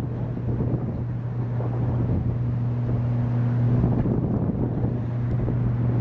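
Downed high-voltage power line arcing: a steady low electrical buzz with irregular crackling throughout.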